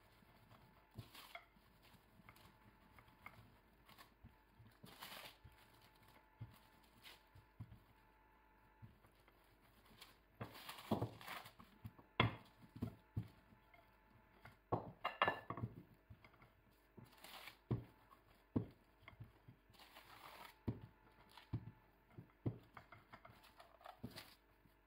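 Wooden rolling pin rolling out dough on parchment paper: irregular back-and-forth rolling strokes with the paper rustling and occasional light knocks, busier in the second half.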